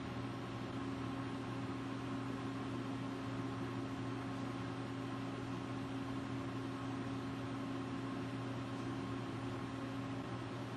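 Steady mechanical hum and hiss with several held tones, from equipment running; one of the tones stops near the end.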